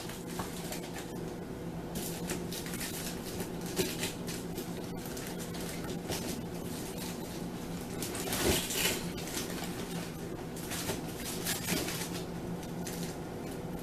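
Frozen food packages being handled and shifted about in a freezer: scattered rustles, clicks and knocks, with one louder clatter about two-thirds of the way through, over a steady low hum.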